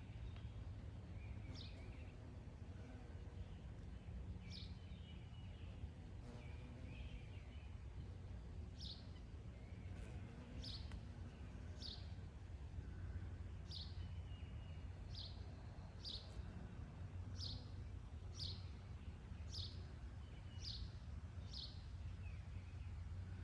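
Chipmunk giving its chip call: short, high chips, a few spaced out at first and then about one a second, over a steady low hum.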